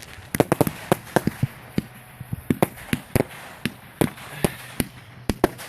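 Fireworks going off: an irregular string of sharp bangs and cracks, a dozen or more, some in quick clusters.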